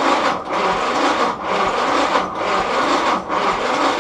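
Willys L134 Go Devil four-cylinder engine cranked over by its starter motor without firing: spark plugs removed and ignition disconnected for a dry compression test. The cranking runs steadily, with a slight rise and fall about once a second.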